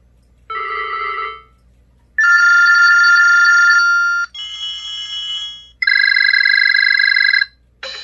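BlackBerry 8703 built-in ringtones previewed one after another through the handset's speaker, each cut short as the scroll wheel moves to the next: a short electronic tone, then three longer steady electronic ring tones, and a rhythmic tune starting near the end.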